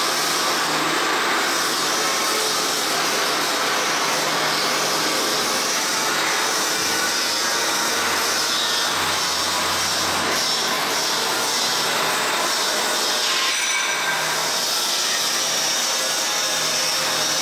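Blade sharpening machine running: a steady, noisy whir of its motor and grinding head, with a low hum underneath.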